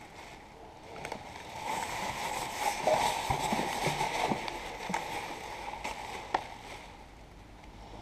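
Black plastic rubbish bag rustling and crinkling as gloved hands stuff and press it down, loudest in the middle, with scattered light clicks and a sharp click about six seconds in.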